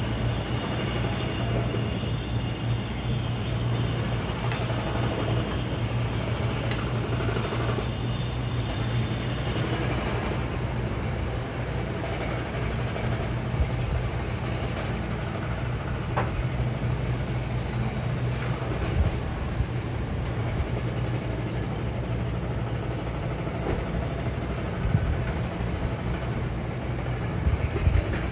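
Heavy machinery running steadily with a strong low hum; a higher hiss over it fades away about ten seconds in.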